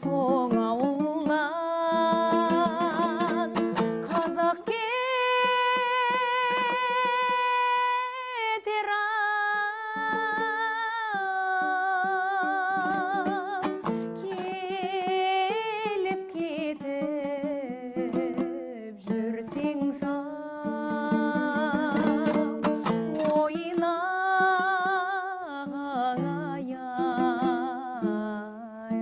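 A woman singing a Kazakh song in long held notes with a wide vibrato, over a plucked string accompaniment.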